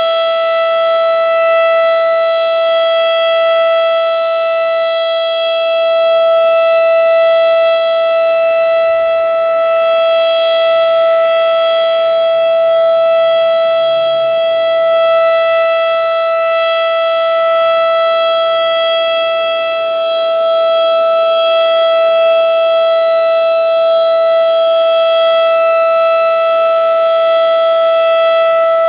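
Federal Sign and Signal STH-10 rotating electromechanical warning siren sounding the Alert signal: one loud steady tone held at a constant pitch, its loudness swelling and dipping gently.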